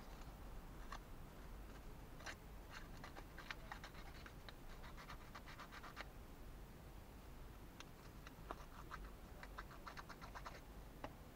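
Faint clicking and scratching of small thin plywood model-kit pieces being handled and fitted together, with quick runs of fine ticking in the middle and again near the end.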